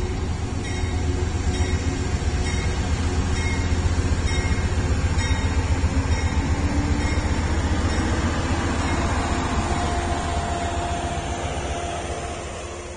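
Amtrak diesel passenger train approaching and passing through a grade crossing: a loud, steady rumble of locomotive and rolling wheels that swells in the middle and eases off near the end.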